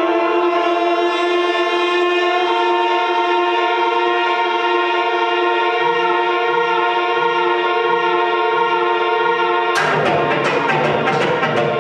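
Live experimental band of electric guitar and electronics playing a loud, dense drone of many held tones. After about six seconds a soft low pulse repeats beneath it. Near the end the drone cuts abruptly into a dense noisy texture with rapid repeated clicks, about six a second.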